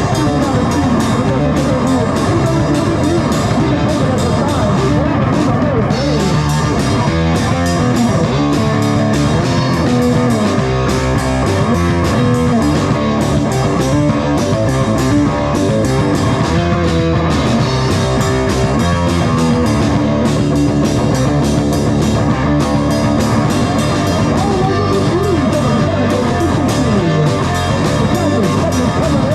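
Rock music with guitar and a drum kit playing steadily.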